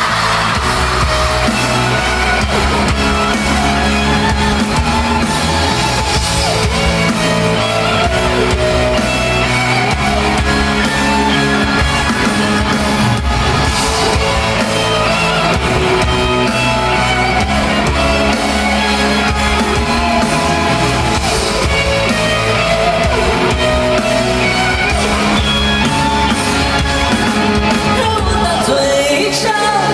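Live band playing an instrumental break in a pop-rock song, with a heavy bass line and drums.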